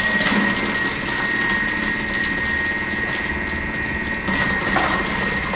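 Thermomix TM6 motor driving the cutter attachment's slicing disc with a steady high whine, as cabbage wedges are pushed down the feeder and cut into thick slices with a light crackle.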